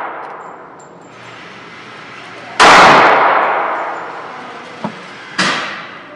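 Two gunshots inside an indoor firing range: a loud one about two and a half seconds in and a quieter one near the end, each ringing off in a long echo off the concrete lane.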